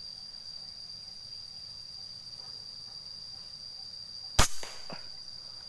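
Air rifle firing a single shot about four seconds in: one sharp crack, then two faint knocks just after it. A steady, high-pitched insect drone runs underneath.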